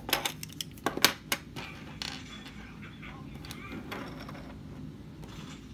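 Small hard plastic toy figures and their accessories clicking and clattering against a wooden tabletop as they are set down: a quick run of sharp clicks in the first second and a half, then a few softer taps.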